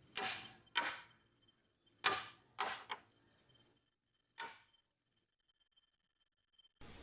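Six sharp knocks at irregular intervals, each ringing briefly, like blows on wood. Just before the end a steady hiss of night ambience cuts in.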